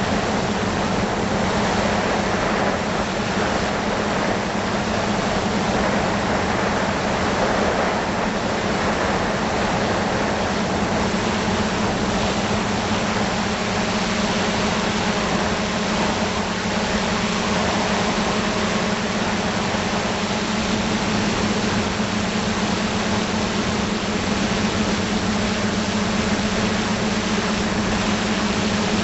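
FPV drone's electric motors and propellers humming at a steady pitch, picked up by its onboard camera, under a constant rush of wind noise on the microphone.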